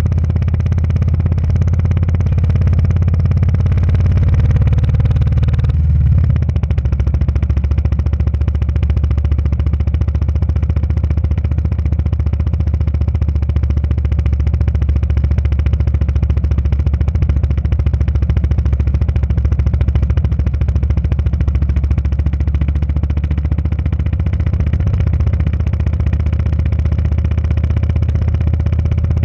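Motorcycle engine running steadily under way on a gravel road, heard from a camera mounted on the bike; the engine note drops slightly about six seconds in.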